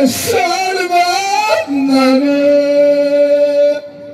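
A solo voice singing a line of Amazigh sung poetry in the Souss ahwach style. The melody bends and glides, then settles on one long held note that stops just before the end. A short noisy burst sounds right at the start.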